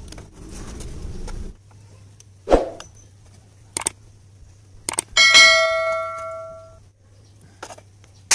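Metal tools and parts being handled: a sharp knock, a few clicks, then a metal tool clanging and ringing out for about a second and a half, just past halfway. A steady low hum runs underneath.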